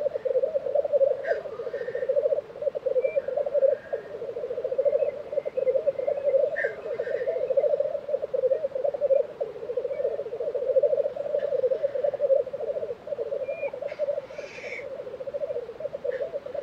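Black grouse cocks lekking: a steady, bubbling rolling coo that never stops, broken a few times by short hissing calls, the clearest about fourteen seconds in.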